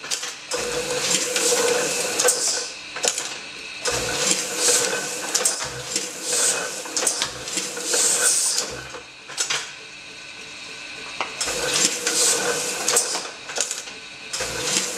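Small letterpress platen press running, its ink rollers and moving parts clattering in repeated stretches of a couple of seconds, with a steady hum under the louder stretches; it eases off for a moment around the middle.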